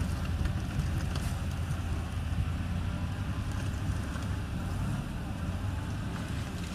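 Heavy diesel earthmoving machinery, a bulldozer or dump truck, running with a steady low engine drone and a few faint clicks.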